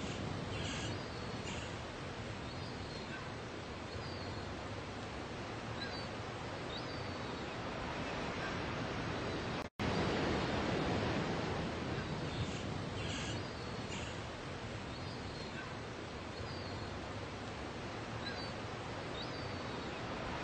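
Surf washing up a beach as a steady rush of noise, with a few faint high chirps. The sound cuts out for an instant about halfway through.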